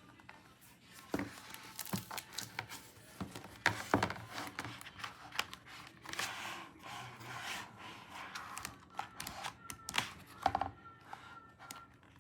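Album packaging being handled by hand: irregular clicks and taps, with a stretch of crinkling plastic or paper wrapping midway.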